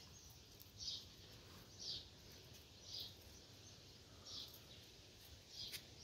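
A bird chirping faintly: short, high single notes repeated about once a second, with a faint click near the end.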